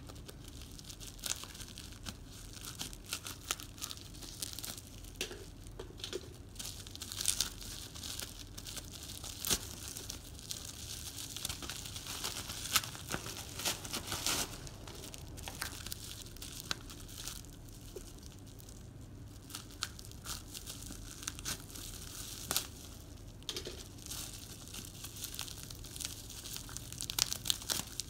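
A parcel's packaging being torn open and crinkled by hand, with a steady run of irregular crackles and small clicks.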